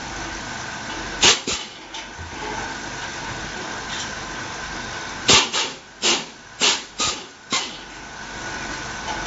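Sharp metallic clicks and knocks from a cordless screwdriver and screws being worked out of a gas water heater's brass valve body: two about a second in, then five in quick succession a few seconds later, over a steady background hum.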